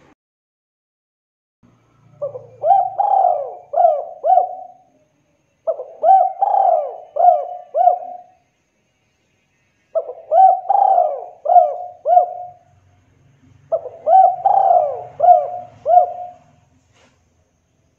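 Spotted dove (derkuku) singing: four cooing phrases a few seconds apart, each a quick run of four or five coos.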